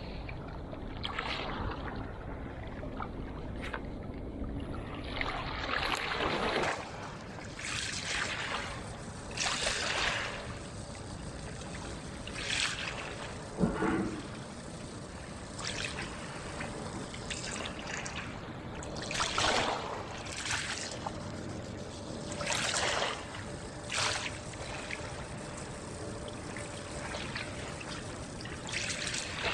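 Water lapping and splashing in irregular surges every second or two over a steady wash.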